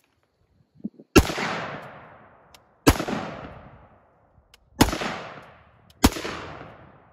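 Four single rifle shots from an AR-15 in 5.56, fired at irregular intervals of one to two seconds. Each sharp crack trails off in echo over about a second and a half.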